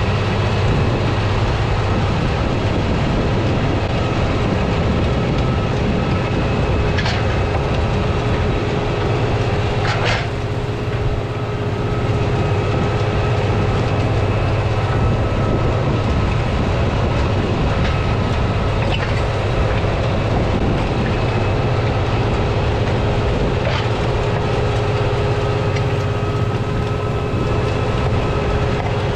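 Deutz Fahr 6175 TTV tractor's 6.1-litre turbocharged six-cylinder diesel running steadily under load as it pulls a disc chisel plow through the soil. A couple of sharp clicks come about a third of the way in.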